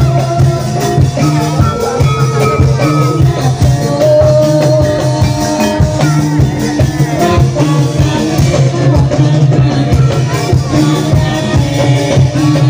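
Loud live band music played through loudspeakers, with a steady drum beat and a sustained low tone under a melody.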